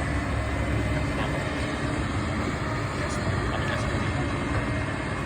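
Hydraulic RC excavator running: a steady mechanical hum with a faint, thin, steady high whine over it.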